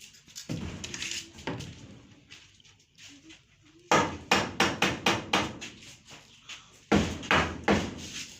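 Hammer blows: a fast run of strikes about four seconds in, then a shorter run near the end.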